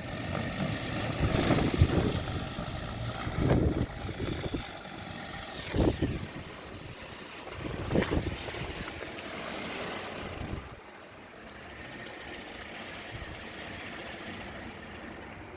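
Strong gusty wind rushing over the microphone in loud buffets that come and go, easing off about eleven seconds in.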